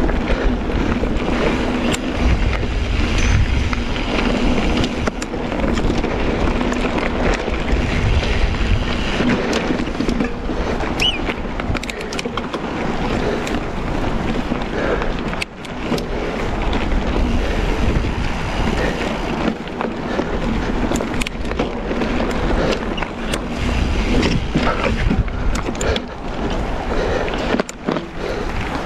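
Mountain bike rolling along a narrow dirt and stony singletrack: tyre noise on gravel with frequent clicks, knocks and rattles from the bike, and wind on the microphone.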